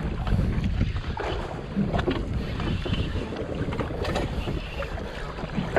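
Wind buffeting the microphone over open sea, with water washing against the boat, while a spinning reel is cranked under load, playing a hooked fish.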